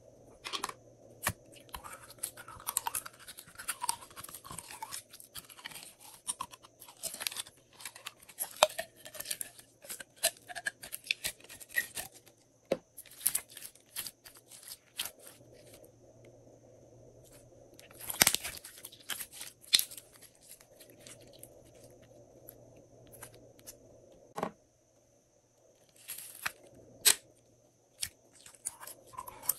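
Glossy slime being squeezed and stretched by hand, giving irregular sticky clicks, pops and crackles, with a faint steady hum underneath.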